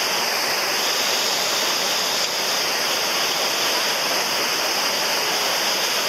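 Fast white-water stream rushing over rocks below a waterfall: a loud, steady rush of water.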